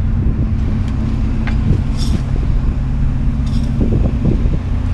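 Motor vehicle engine idling steadily, with scattered knocks and rattles over it.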